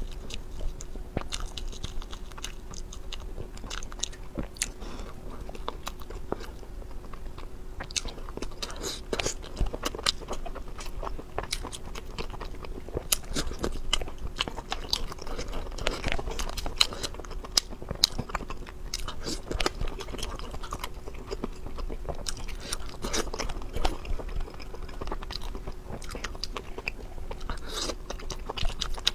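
Close-miked chewing and biting of chili-sauced seafood: irregular wet mouth clicks, smacks and crunches, with a faint steady hum underneath.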